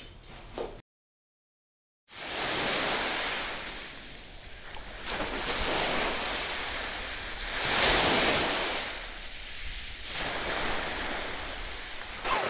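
About a second of silence near the start, then sea surf washing onto a beach in slow swells, with wind on the microphone and the splashing of a swimmer's strokes in the water.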